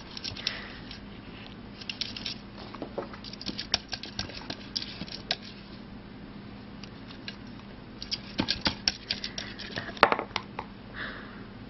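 A cat lapping with its tongue at the narrow neck of a plastic water bottle: bursts of quick clicks, with one louder click about ten seconds in.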